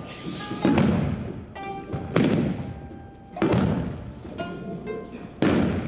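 Four heavy thuds of aikido students' breakfalls on the mat, spaced about one and a half seconds apart, each with a short rush of cloth and body noise after it. Background music with held tones runs underneath.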